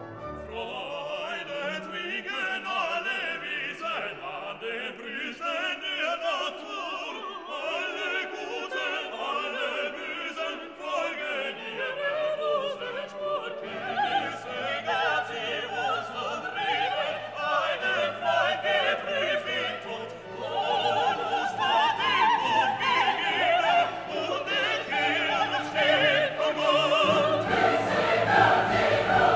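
Background music: orchestral classical music with operatic or choral singing, growing fuller and louder about two-thirds of the way through.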